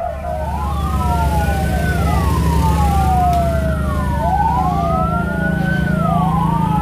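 Two or more fire-truck sirens wailing out of step, each rising and falling slowly every few seconds so that the sweeps cross and overlap, over a steady low engine rumble.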